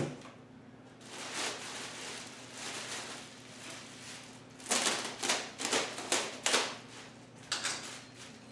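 Clear plastic bag over a new saw being grabbed and pulled, crinkling and rustling: soft rustling at first, then a run of sharp crackles about halfway through and a few more near the end.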